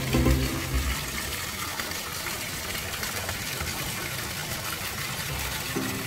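Steady rush of hot-spring water flowing into an open-air bath from a free-flowing source. Background music with held low notes fades out about a second in and comes back near the end.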